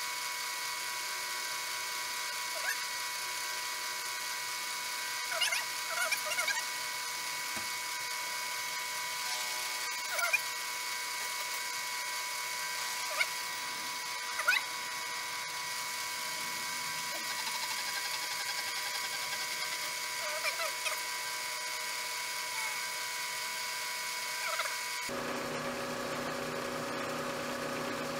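Vertical milling machine with its spindle running and an end mill cutting a step in a bar clamped in the vise. It gives a steady high whine with scattered short chirps and ticks. Near the end the sound switches abruptly to a lower, steadier hum.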